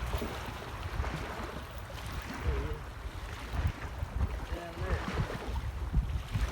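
Wind buffeting the microphone with a gusty rumble, over an even rush of open-air noise, with faint voices now and then.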